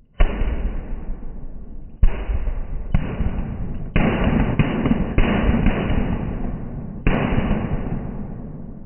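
Firecrackers going off: about seven sharp bangs, several close together in the middle, each trailing off into a deep rumbling decay.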